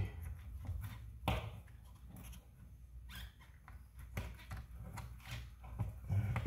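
Scattered small clicks and taps of a screw being fitted into a suspension arm by hand, with a sharper click about a second in.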